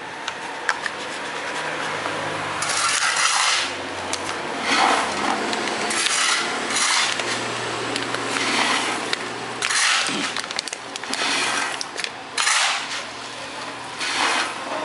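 Hand rubbing strokes on a part, repeating irregularly about once a second, starting about three seconds in.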